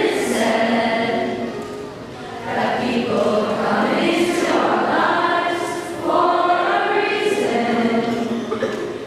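A large group of voices singing together as a choir, in sustained phrases a few seconds long with short breaks between them.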